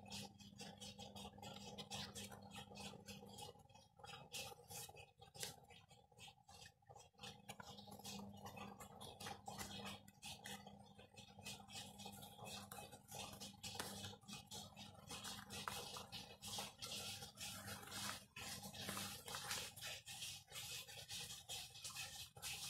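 Faint rustling, tapping and scraping of paper and card as the pages and inserts of a handmade scrapbook journal are turned and handled, over a steady low hum.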